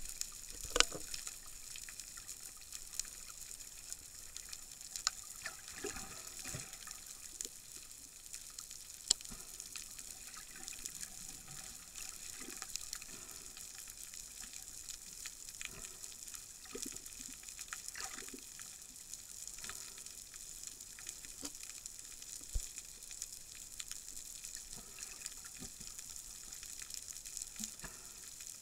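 Underwater ambience heard through a submerged camera: a steady high hiss with many faint scattered clicks and crackles. Three sharper clicks stand out, one right at the start, one about nine seconds in and one about twenty-two seconds in.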